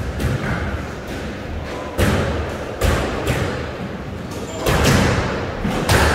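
Squash rally: a series of sharp hits as the racket strikes the ball and the ball smacks off the court walls, each ringing briefly in the enclosed court.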